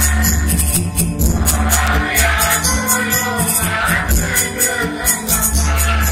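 A large chorus singing a song to band accompaniment, with deep bass and a steady, high percussion beat.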